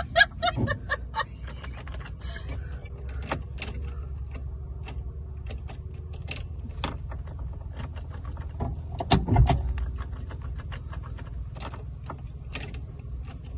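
A 2000 Chevy Tracker's 2.0-liter four-cylinder running steadily, heard from inside the cabin as a low rumble. Scattered light clicks and rattles run through it, with a louder thump and rumble about nine seconds in.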